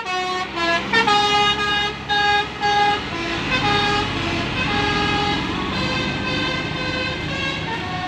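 Bus 'telolet basuri' musical horn playing a tune of short, separate flute-like notes that step up and down in pitch, over the bus's engine and passing traffic, which grow louder after about three seconds.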